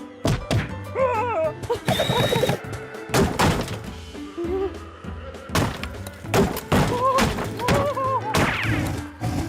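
Animated cartoon soundtrack: a run of slapstick thuds and knocks over background music, with short wordless squeaky character vocalisations in between.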